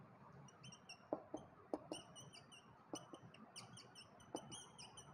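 Marker squeaking on a whiteboard in many short, high chirps as words are written, with a few sharp taps of the tip against the board.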